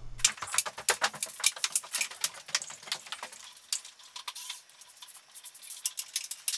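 PVC electrical conduit pipes being handled and fitted, making quick, sharp plastic clicks and taps. The clicks come thick and fast for about three seconds, then thin out.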